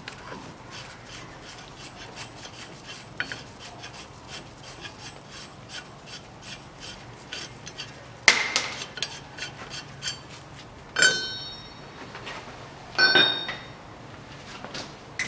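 Metal clicking and clinking as a steel slide-hammer puller flange is unbolted from the wheel studs of a rear axle hub. There is a sharp metal knock about eight seconds in, then two ringing metal clanks near the end as the flange is pulled off and handled.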